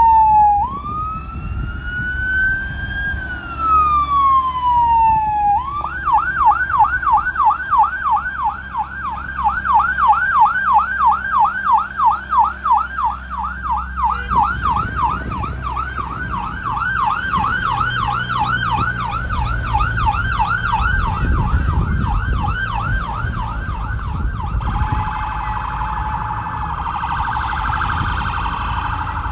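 Electronic emergency-vehicle siren. It starts as a slow rising and falling wail, switches about six seconds in to a fast yelp of roughly two and a half sweeps a second, and changes near the end to a rapid, denser warble, with a low vehicle rumble underneath.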